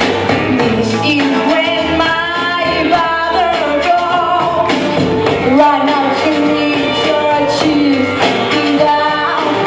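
Live music performed on stage: a singer's melody carried over a band, with drums among the instruments.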